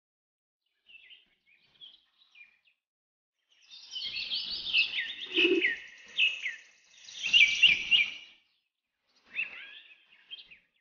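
Small birds chirping in quick, falling notes, in bursts: faint at first, loudest and busiest in the middle, then a shorter burst near the end.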